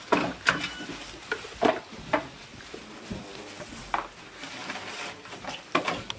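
Irregular light knocks, clicks and clatter with rustling, about eight sharp hits spread unevenly: people handling things at close range in a small room.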